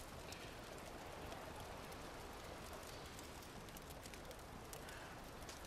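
Faint steady rush of river water, with a few small clicks and rustles as the withy and sticks are handled.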